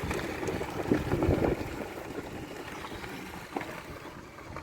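Car rolling slowly over a gravel road: a low tyre and road rumble with crunching gravel, loudest in the first second and a half and then easing off.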